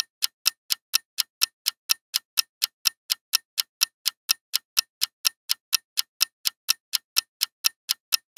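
Ticking-clock sound effect counting down a quiz timer: short, sharp, evenly spaced ticks, about four a second.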